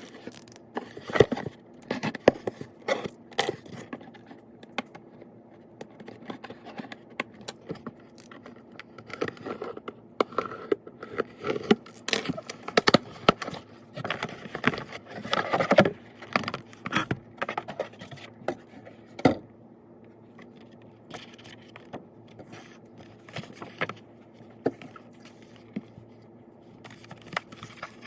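Handling noise from a Logitech K380 keyboard, M350 mouse and their packaging: irregular clicks, taps and scrapes. The noise is busiest in the first half, with a sharp click about nineteen seconds in, then thins out to occasional small knocks.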